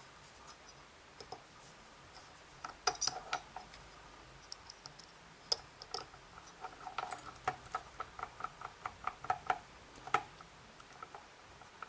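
Small, sharp metallic clicks and taps from handling a small pin-tumbler lock cylinder while taking it apart, with a quick run of ticking clicks a few per second in the second half.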